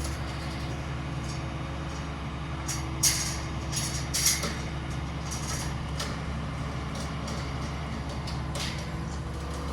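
Heavy construction machine's diesel engine running steadily, with a series of short, sharp clinks and knocks about three to four and a half seconds in and a few more near the end.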